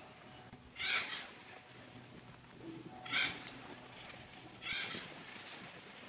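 Acorn woodpecker giving harsh, raspy calls, four separate calls about one and a half to two seconds apart.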